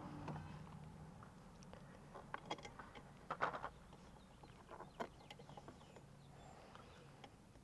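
Scattered light clicks and knocks of hands working on parts, with a small cluster of louder knocks about three and a half seconds in. A faint steady low hum sits underneath.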